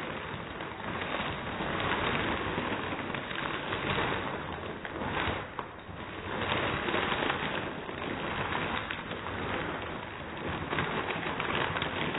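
A bag of tortilla chips being squeezed and crushed by hand: the bag crinkling and the chips inside crunching and breaking in a dense crackle that comes in surges, with a short lull about six seconds in.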